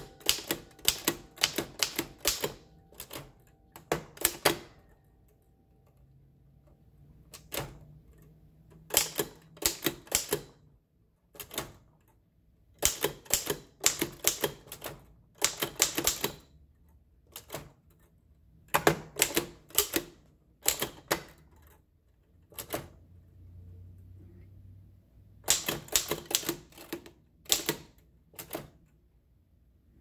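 Restored Oliver No. 5 typewriter being typed on: its typebars strike the platen in quick bursts of sharp clacks, separated by short pauses of a second or two.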